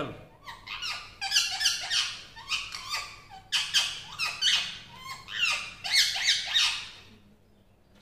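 Indian ringneck parakeet whistling: a long string of quick, high chirping whistle notes in several rapid runs, stopping about seven seconds in.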